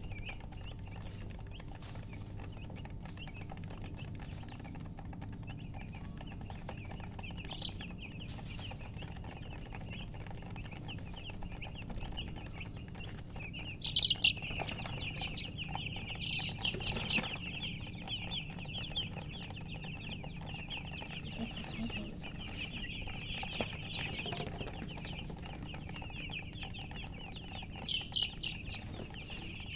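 Newborn chicks peeping, a rapid stream of short, high cheeps. They are sparse at first and become a dense, loud chorus about halfway through, with loud bursts near the middle and near the end.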